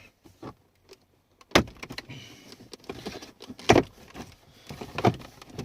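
2016 Kia Soul EV's plastic center console trim being pried up around the shifter, its retaining clips letting go with two loud snaps about two seconds apart, with smaller clicks and rattling of plastic between them.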